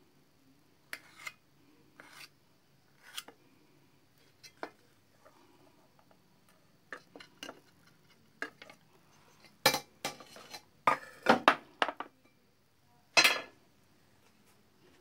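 Knife tapping and scraping on an enamel plate as cooked sweet potato is cut into small cubes, with a cluster of louder clinks and scrapes of crockery and cutlery from about ten seconds in and one more near the end.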